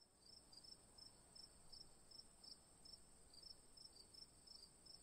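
Faint crickets chirping in an even rhythm, about three chirps a second, over a steady high-pitched trill: a night-time insect ambience bed.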